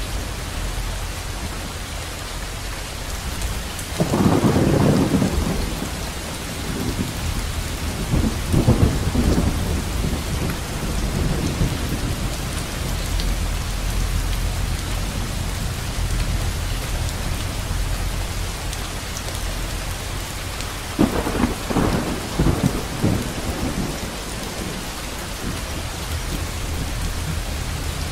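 Steady rain with rolls of thunder about four seconds in, around eight seconds in, and again about twenty-one seconds in.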